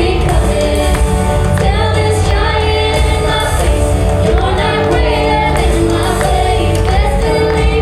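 Praise-and-worship music: singers over continuous instrumental accompaniment with a strong low end.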